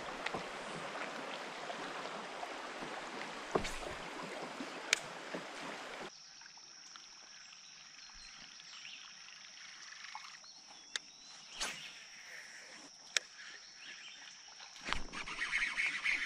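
River water rushing over a shallow riffle around a kayak. About six seconds in it gives way to a quieter, calm stretch with a steady high-pitched hum and a few sharp clicks.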